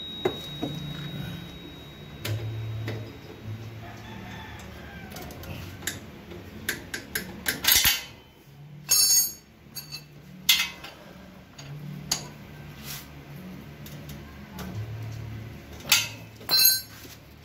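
Metal tools clinking and knocking against the tricycle's chain adjuster nuts and axle as they are tightened, in scattered sharp clinks, most of them in the middle of the stretch and a couple more near the end.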